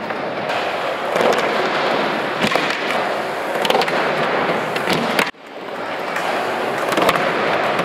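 Skateboard wheels rolling over the concrete floor and wooden quarter-pipe ramp, with several sharp clacks of the board. The sound drops out suddenly a little over five seconds in and fades back up.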